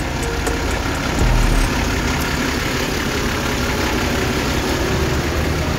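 A motor vehicle's engine idling: a steady low rumble.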